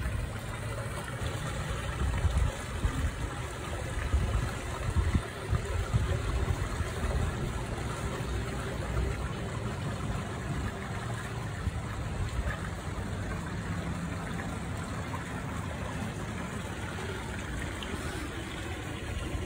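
Steady running, trickling water in an otter exhibit pool, with some uneven low rumbling in the first few seconds.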